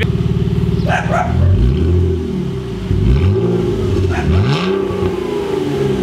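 BMW 323Ci's 2.5-litre straight-six with a new straight-through exhaust, front to back, idling and given a few light blips of the throttle, the revs rising and falling each time. The revs are kept low.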